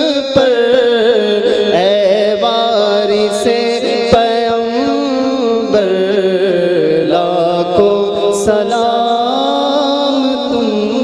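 Devotional salam chanted by male voices in a slow, wavering melody.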